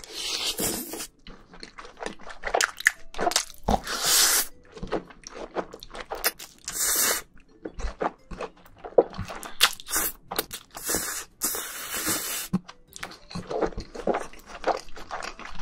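Close-miked chewing and slurping of black bean noodles (jajangmyeon) with chunks of pork: wet, irregular mouth noises with several longer slurps spread through.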